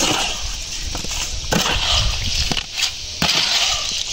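Wet concrete sliding and pouring out of a tipped wheelbarrow into wooden formwork, with two sharp knocks about a second and a half and three seconds in.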